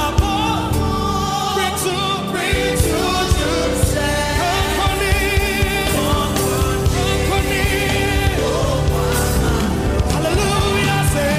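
Gospel worship music: singing voices, with a choir, over a band with a steady drum beat.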